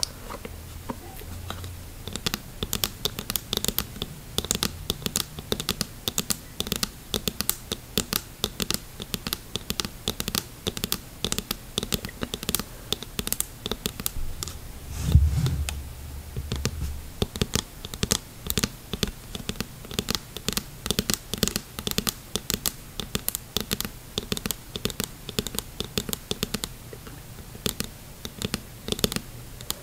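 Long fingernails tapping fast and unevenly on the lenses of a diving mask worn on the face, a dense run of light clicks. About halfway through there is one low thump, the loudest sound.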